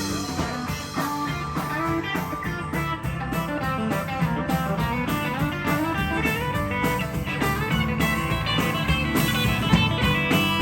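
Instrumental break in a country song: a guitar plays a lead line of quick notes over the band's steady backing.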